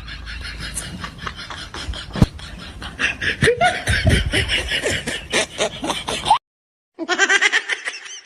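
Laughter: rapid, giggling bursts that stop abruptly about six seconds in, then start again after a short gap.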